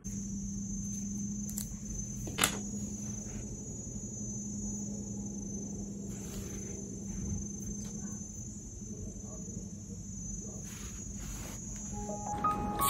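Light handling clicks as a black resin wristwatch strap is buckled and thin metal wire rings are slipped onto fingers, with one sharp click about two and a half seconds in. Under them run a steady high-pitched whine and a low hum. Soft music comes in near the end.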